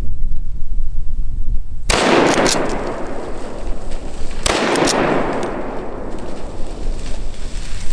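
Two .308 rifle shots about two and a half seconds apart, each a sudden crack trailing off in a long echo. Wind buffets the microphone before the first shot.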